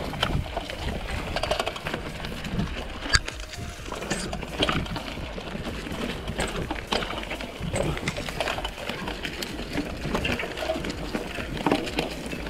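Mountain bike ridden along a dirt trail, its tyres crunching over soil and scattered twigs while the bike rattles and knocks irregularly over the bumps.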